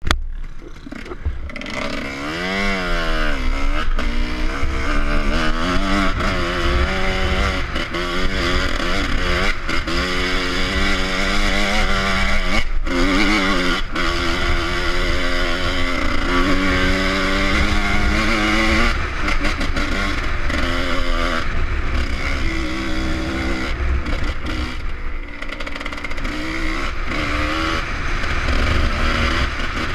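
Off-road motorcycle engine revving up and down as it is ridden. Its pitch rises and falls again and again through the gears, with a quick rising rev about two seconds in. Wind buffets the microphone throughout.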